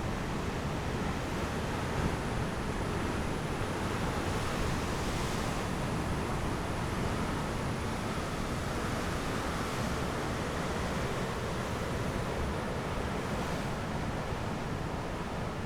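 Steady wash of sea surf with wind buffeting the microphone, the wind's low rumble the loudest part.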